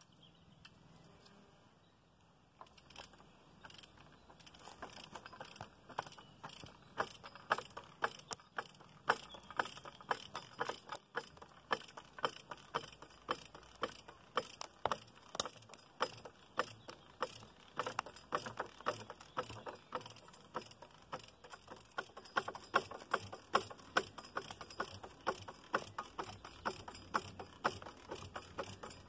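Ratcheting tree jack being pumped by hand, its pawls clicking rapidly over the teeth as the lever lifts a heavy log to roll it. The clicking starts a couple of seconds in and goes on in a quick, uneven train.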